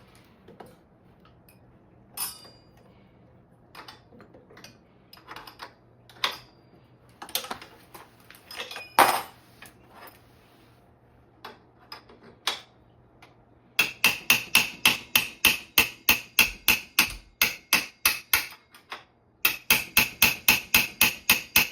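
Hammer striking a 21 mm wrench to tighten an e-bike's rear axle nut: scattered metal clicks and knocks at first, then a fast, even run of sharp, ringing metal strikes, about four a second, pausing briefly before a second run.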